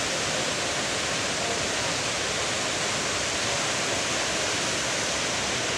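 A waterfall: water falling with a steady, even rush.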